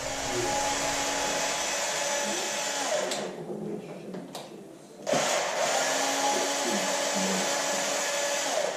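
Small handheld electric power tool motor running steadily in two bursts of about three seconds each, winding down at the end of each run, with a couple of clicks in the pause between them.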